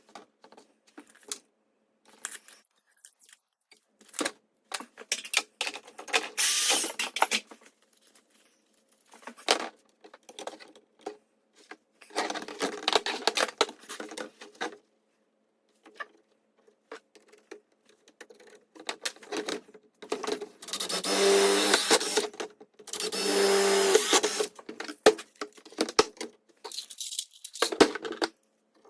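Intermittent workshop handling noise: clicks, rattles and rustling of tools and parts, with several louder bursts a few seconds long, the longest two near the end.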